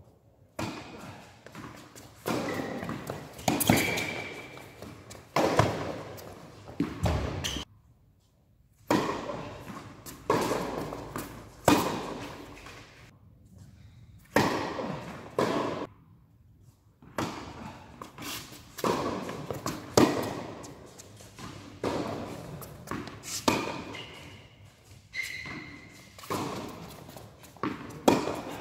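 Tennis ball being struck by rackets and bouncing on an indoor hard court: a string of sharp hits every second or two, each echoing in a large hall.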